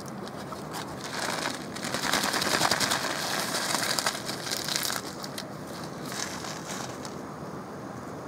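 Packaging of dehydrated minced beef crinkling and crunching as it is handled, starting about a second in and loudest in the middle before dropping to a faint rustle.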